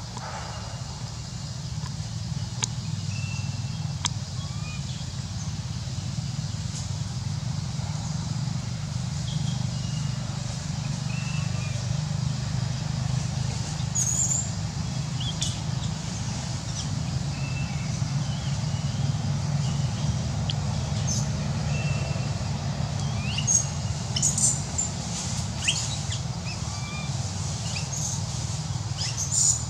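Outdoor ambience: a steady low hum with scattered short, high chirping calls and a few sharp clicks, mostly in the last few seconds.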